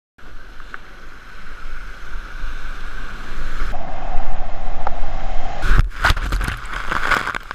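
Whitewater rushing close around a kayak running a waterfall drop. The sound jumps at edits, and about six seconds in comes a loud stretch of splashing with sharp knocks as the kayak plunges into the foam.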